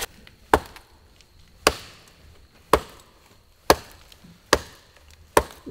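Hatchet chopping into a log: six sharp strikes, about one a second.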